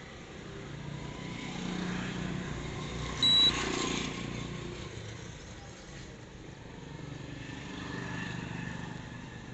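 A single short electronic beep from the ceiling fan's DC controller board about three seconds in, over passing road traffic that swells and fades twice.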